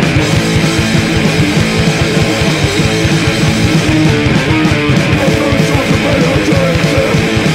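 Hardcore punk band playing loud: distorted electric guitar, bass and drums in a rehearsal recording.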